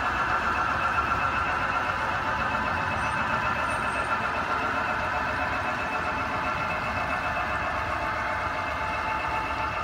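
Large-scale garden railway freight train rolling along its track: a steady mechanical running sound of wheels and motors that eases off slightly toward the end.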